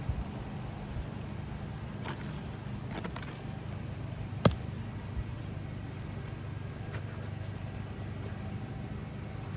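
Roofing hand tools working at asphalt shingles: light scrapes and clicks, with one sharp knock about four and a half seconds in, over a steady low hum.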